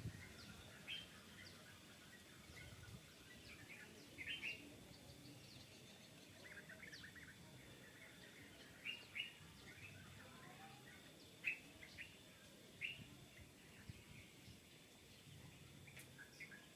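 Faint, scattered bird chirps: many short, high calls at irregular intervals over a low background hiss.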